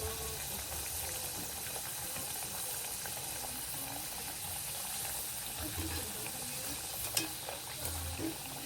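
Breaded potato mojos deep-frying in hot oil, a steady sizzle through their first frying. A single sharp tap sounds about seven seconds in.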